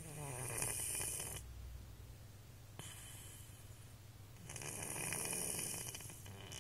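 A sleeping cat snoring: two loud rattling snore breaths about four seconds apart, with a fainter breath between them.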